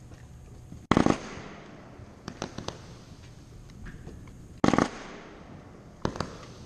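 Fireworks shells bursting: two loud booms about four seconds apart, each followed by a rumbling echo, with a few smaller sharp pops between and near the end.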